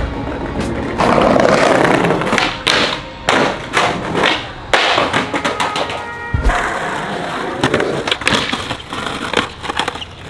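Skateboard rolling on concrete, with repeated clacks and thuds of the board striking and landing during trick attempts.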